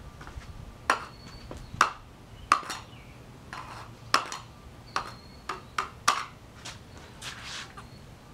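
A screwdriver-like tool jabbing at a punctured iPhone lithium-ion battery inside a metal can: about a dozen irregular sharp taps, several with a brief metallic ping.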